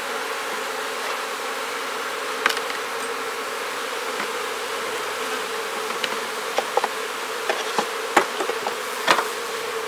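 Honeybees buzzing steadily around an open hive, with a few short light knocks and clicks scattered through, the sharpest near the end.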